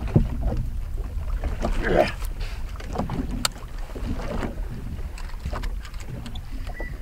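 Wind rumbling on the microphone over water slapping a fishing boat, with scattered clicks and knocks as a fish and a lip-grip scale are handled.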